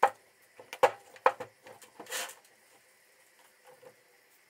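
Small steel parts being handled and set down on a galvanized steel sheet: three sharp knocks and clinks in the first second and a half, then a brief scraping rustle about two seconds in, followed by a few faint ticks.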